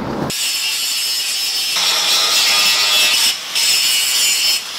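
Angle grinder grinding steel and throwing sparks: a steady high whine over a hiss, breaking off briefly about three seconds in and again near the end.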